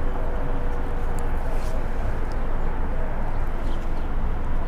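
Wind rushing over the microphone and road noise from a road bike rolling at speed. A faint steady tone fades out about a second in.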